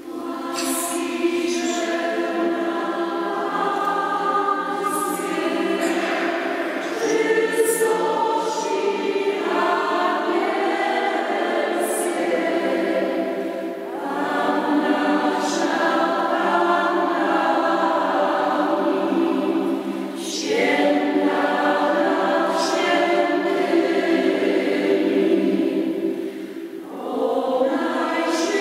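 Mixed choir of women's and men's voices singing, in sung phrases with short breaks between them about 14, 20 and 27 seconds in.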